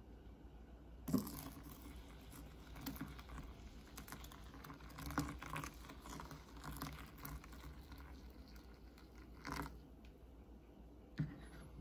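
Hot water poured from a glass carafe onto ground coffee in a paper-lined Clever Dripper: a soft trickling patter lasting about eight seconds. It starts with a light knock about a second in and stops with another knock near the end.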